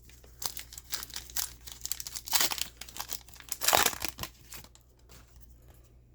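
Foil trading-card pack wrapper crinkling and tearing as it is ripped open and handled: irregular crackles with two louder rips in the middle, dying away near the end.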